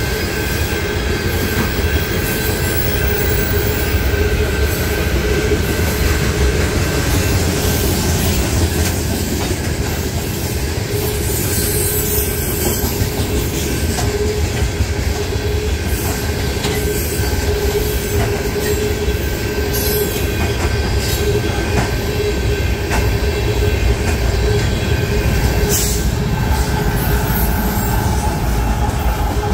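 Loaded tank cars of a BNSF ethanol freight train rolling past at speed: steady rumble, irregular clicks from the wheels over the crossing, and a held wheel squeal. Near the end, diesel locomotives in the train go by.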